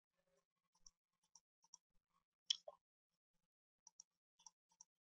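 A string of faint computer mouse clicks, some in quick pairs, the loudest about two and a half seconds in.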